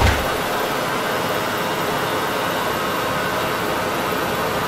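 Honda V6 engine running steadily under test, a constant even noise with no change in pitch. A short low thump sounds right at the start.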